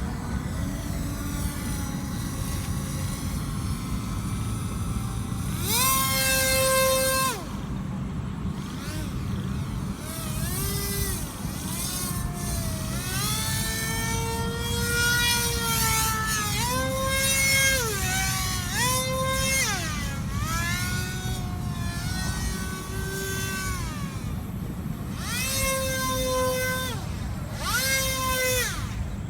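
RC paramotor's propeller motor whining, its pitch repeatedly rising and falling as the throttle is opened and closed, loudest for a second or so a few seconds in and twice near the end. A steady low rumble of strong wind on the microphone lies underneath.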